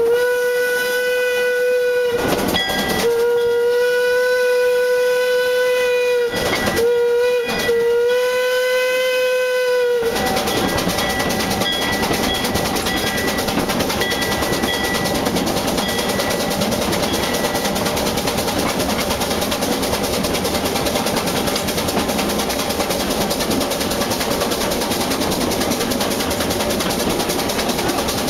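Steam whistle of 1904 Vulcan Iron Works two-foot-gauge locomotive #10, sounded in several blasts with brief breaks for about ten seconds. Then the steady rolling noise and rail clatter of the narrow-gauge train on the move.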